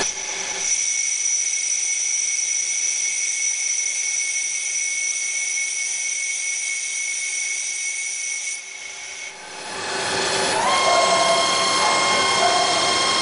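SMART CNC lathe running, its boring bar cutting inside a brass workpiece, with a steady high-pitched whine. The sound drops briefly about nine seconds in, then returns louder with a lower steady tone added.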